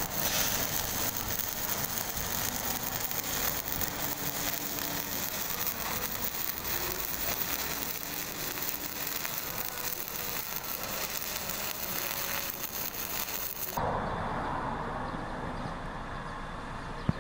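Stick-welding arc crackling and sputtering steadily as a coated electrode burns along a circular weld on steel. About fourteen seconds in the crackle cuts off abruptly, leaving a quieter background.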